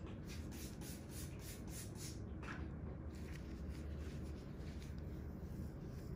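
Faint rubbing and scratching: a run of soft strokes, about three a second, through the first two seconds, then a few scattered ones, over a low steady hum.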